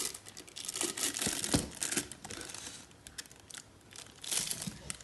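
Irregular crinkling and rustling with scattered small clicks and knocks, from crinkly material being handled.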